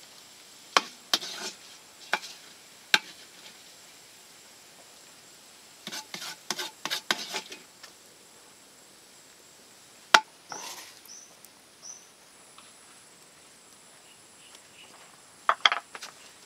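A metal ladle clinking and scraping against a metal wok as pieces of yellow adobo are scooped and heaped: scattered sharp clinks, a quick run of them about six seconds in, a single loud one about ten seconds in, and a couple more near the end. A faint steady insect chirr runs underneath.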